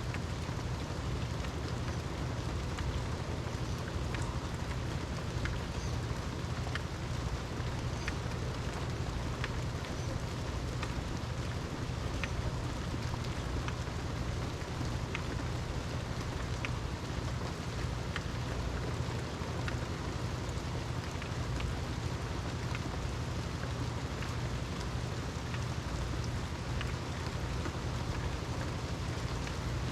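Steady rain falling, with scattered single drops ticking sharply close by over a constant low rumble.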